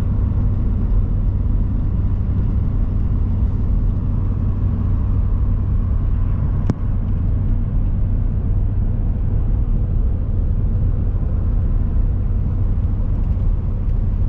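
Pickup truck driving on a snow-covered road: a steady low rumble of engine and road noise, with a single sharp click about halfway through.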